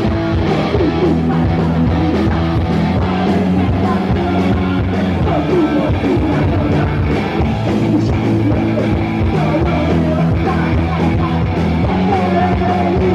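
Rock music: a band with guitars and a singing voice.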